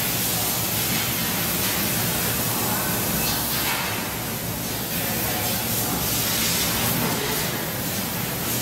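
600 W YAG laser cutting machine cutting 4 mm carbon steel: a steady hiss from the cutting head's assist gas jet, with a low hum underneath.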